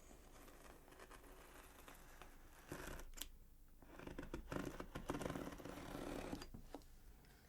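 A cutting tool working at a laminated black cardboard box. It is quiet at first; from about three seconds in there is a run of scraping, rustling and sharp clicks as the cardboard is cut and handled.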